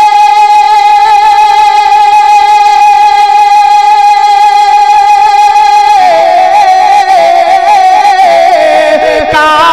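Male manqabat reciter singing into a microphone, holding one long high note for about six seconds, then breaking into a wavering, falling run of notes.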